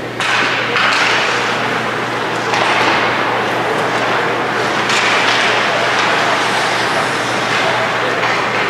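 Ice hockey rink ambience: a steady wash of noise that swells up several times, over a constant low hum.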